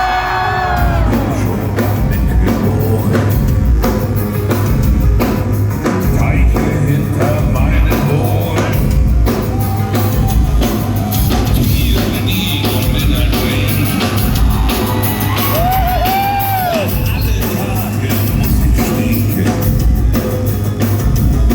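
Live heavy rock band playing loud, with a pounding drum beat and distorted guitars. A voice gives a rising-and-falling yell about 16 seconds in.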